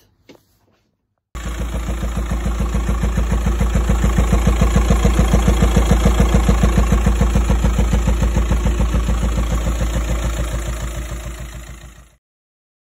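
Volkswagen Passat 1.9 TDI diesel engine running with a regular pulsing beat. It has the strange noise the mechanic takes for a detonation in the airbox and suspects comes from a badly failing hydraulic lifter. The sound starts about a second in, swells, then fades and cuts off shortly before the end.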